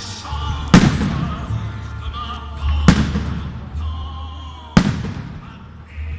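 Three firework shell bursts about two seconds apart, each a sharp bang followed by a trailing echo, with music playing underneath.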